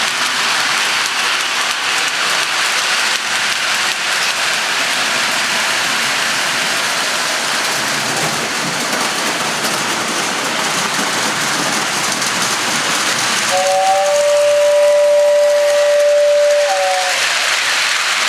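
A steady hissing noise throughout. About three-quarters of the way through, a train whistle blows one held two-tone chord for about three seconds, with a slight bend in pitch as it starts and as it stops.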